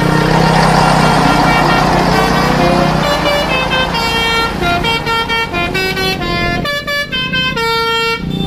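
A bus engine running under a rushing hiss, with one rising pitch, then from about three seconds in a basuri multi-tone bus horn (telolet) plays a quick melody of short stepped notes.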